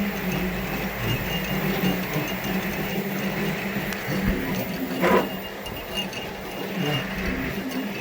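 Central Machinery milling machine converted to CNC, running with a steady motor hum and a thin high whine, like stepper-driven axes moving. A single sharp knock about five seconds in.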